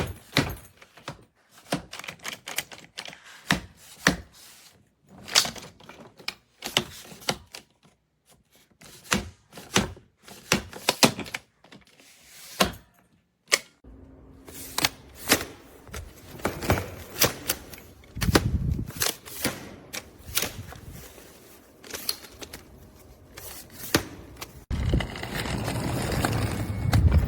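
Hardside carry-on suitcase being handled: a long, irregular run of sharp clicks and knocks against the hard shell and its fittings, with a steadier noise joining near the end.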